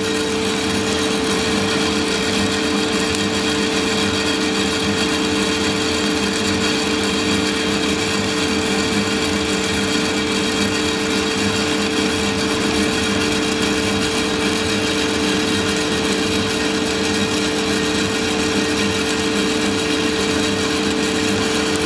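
Santoker R6 6 kg gas-fired drum coffee roaster running with a steady hum from its drum and fan, while the beans crackle in first crack, the pops growing denser.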